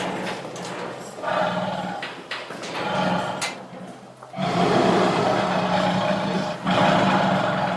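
Tiger growling and roaring in a series of long rumbling calls, with a brief lull about four seconds in before the loudest, longest call.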